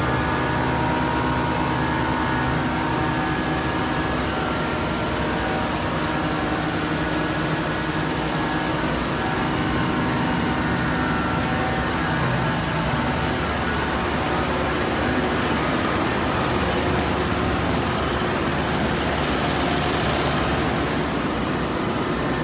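Heavy truck diesel engine running steadily, a low rumble with a constant hum of several steady tones.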